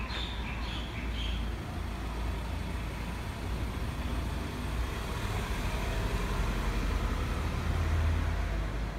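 Low steady rumble of road traffic, growing louder toward the end as a vehicle passes.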